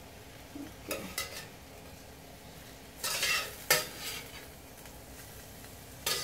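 A metal utensil scraping and clicking against a stainless-steel skillet as cooked shrimp are scooped out into a bowl, over a faint sizzle from the pan. It comes as several separate scrapes and clicks, the longest about three seconds in.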